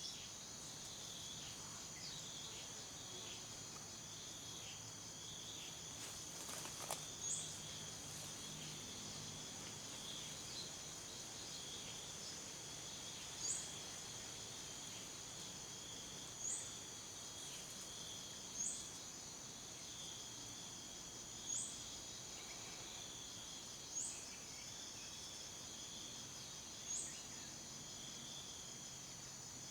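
Tropical forest ambience: a steady, high, dense drone of crickets and other insects, broken by a short, sharp, rising chirp that repeats about every two to three seconds.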